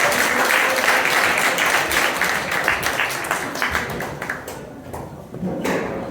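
Crowd applauding, the clapping thinning out and dying away about four to five seconds in.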